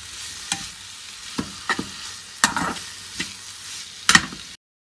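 Slotted metal spatula scraping and knocking against a frying pan as shredded chicken and chopped vegetables are stirred and sautéed, over a faint steady sizzle. The strokes come at irregular intervals, the loudest about four seconds in, and the sound cuts out suddenly near the end.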